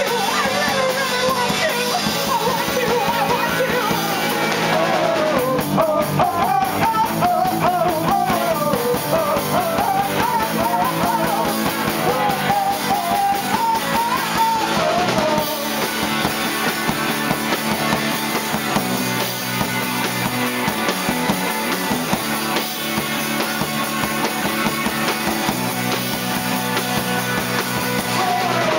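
Punk rock band playing live: distorted electric guitars and a drum kit, with a wavering melodic line on top, easing back slightly about halfway through.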